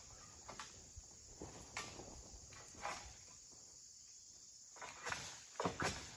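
Scattered faint scrapes and knocks of a long oil palm harvesting pole moving against the palm's fronds and trunk, louder and closer together near the end, over a steady high insect hiss.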